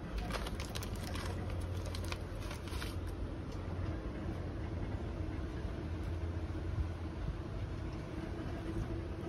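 Plastic packet of oil-absorbing pads crinkling as it is handled, in quick crackles for the first three seconds or so, over a steady low mechanical hum.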